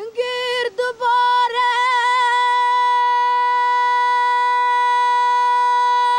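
A high voice singing: a few short wavering notes, then one long note held steady for about four seconds.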